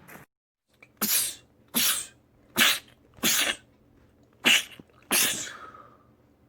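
A man sneezing six times in quick succession, each sneeze a short sharp burst. The last one is followed by a trailing exhale that fades out.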